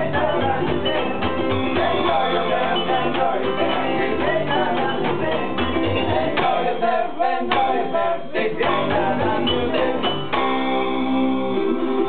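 Small live band with ukulele, guitar and upright double bass playing an upbeat song while a man sings. About ten seconds in, the singing stops and the instruments play on.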